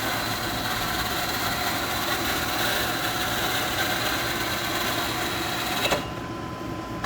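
Fat Haco TUR 630 lathe's carriage moving under power rapid traverse, dragging the tailstock along the bed: a steady mechanical whir with a faint high whine. A click near the end, after which the sound drops quieter.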